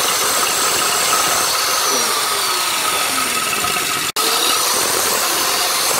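Old electric drill running with a 6 mm glass bit, grinding away the ceramic of a toilet-cistern lid to widen its hole. It runs continuously and loudly, with a momentary break about four seconds in.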